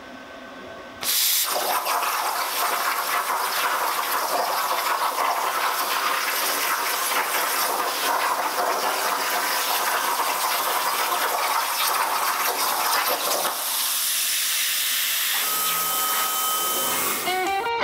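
Unimig Razor Cut 45 plasma cutter: after a quiet second the arc strikes and pierces 3 mm mild steel plate, then cuts with a loud, steady hiss as the CNC torch travels along the cut path.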